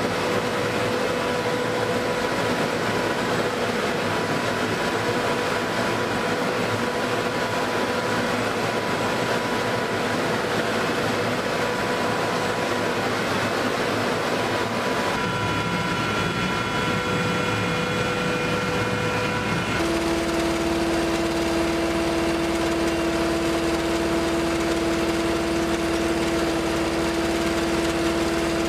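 Steady mechanical running noise with a small engine's drone from a bomb lift truck raising a bomb into a bomber's weapons bay. About 20 seconds in it changes to a steady, lower-pitched hum.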